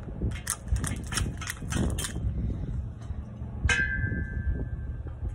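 Quick metal taps and knocks on a steel brickwork corner profile and its clamp, then one harder strike about two-thirds of the way in that rings on for over a second.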